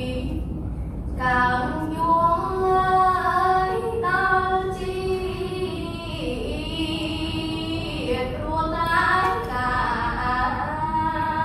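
A girl's solo voice chanting Khmer verse unaccompanied in a sung, melodic recitation style, holding long wavering notes. Short breaths break the phrases about a second in and again around six and eight seconds in.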